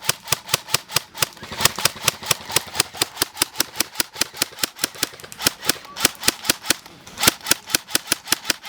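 Airsoft gun firing in a rapid, steady stream of sharp cracks, about six shots a second, with a brief break just before the end.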